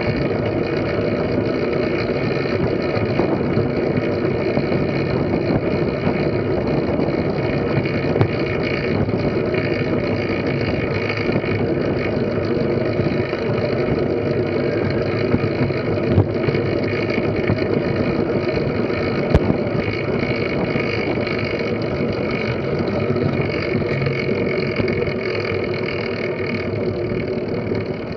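Steady rush of wind over the microphone of a camera riding on a track bike, with the hum of tyres rolling on the wooden velodrome boards. It eases slightly near the end.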